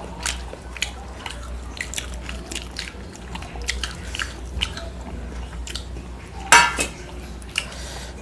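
Close-up eating sounds: fingers mixing rice and curry on steel plates, with wet mouth clicks and chewing in many short, sharp ticks. One louder brief sound about six and a half seconds in.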